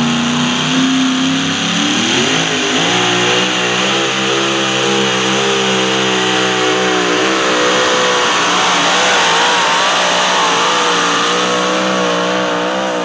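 Supercharged V8 of a super modified two-wheel-drive pulling truck at full throttle during a pull: the revs climb about two seconds in, then hold high with the pitch wavering up and down.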